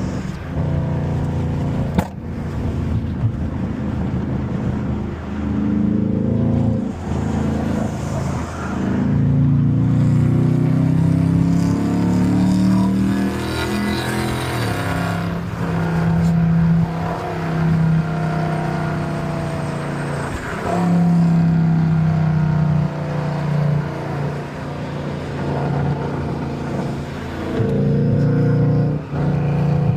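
Dodge Charger's 5.7-litre Hemi V8 running through catless mid-pipes, the exhaust note rising and falling in pitch with the throttle, with steadier stretches in between.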